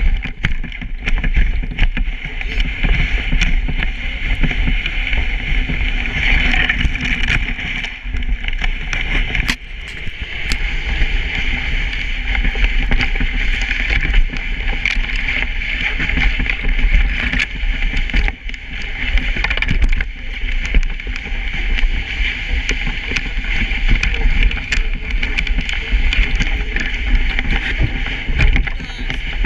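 A dog sled moving over a packed snow trail: its runners make a steady sliding noise on the snow, with frequent small clicks and knocks from the sled as it rides over bumps, over a low rumble.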